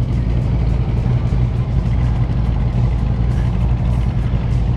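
Motorcycle engine idling steadily with an even, low note.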